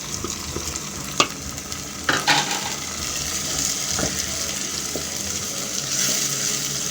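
Onions and spices frying in oil in a pan with a steady sizzle, stirred with a utensil. There is a sharp click of the utensil about a second in, then a couple of knocks and louder sizzling about two seconds in as chopped tomatoes go into the pan.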